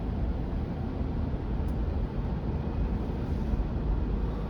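Steady low rumble of tyre and road noise heard inside a car's cabin on wet pavement.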